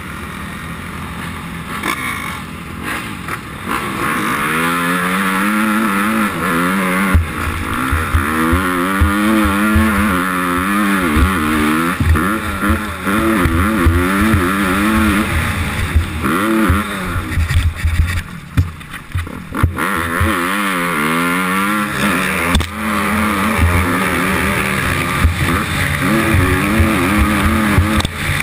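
Motocross bike engine heard on board, revving up and falling back again and again as it is ridden around the track, with wind noise on the microphone and frequent low thuds throughout. The engine eases off and runs lower and quieter for a few seconds about halfway through before revving hard again.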